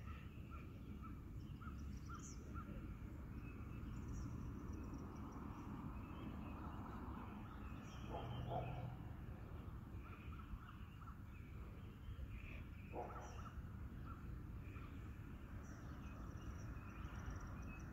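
Birds calling over a steady low background rumble: a string of short repeated chirps throughout, with a few louder, lower calls about eight seconds in and again near thirteen seconds.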